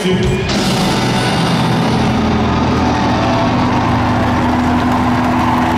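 Live rock band's distorted electric guitars and bass holding one loud chord as a steady drone, the ringing-out end of a song. The drone sets in suddenly about half a second in, after the singing stops.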